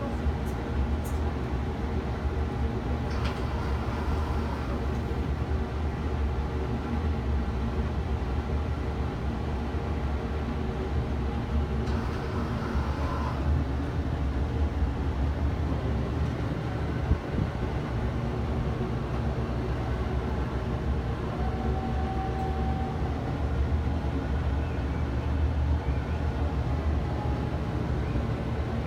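Steady low mechanical hum and rumble heard from inside a ferris wheel gondola, with several even tones held throughout.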